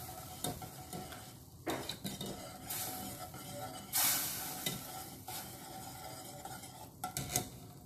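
Wire whisk stirring milk and melted butter in a stainless steel saucepan, scraping and clinking against the pan about once a second, over a faint steady hiss.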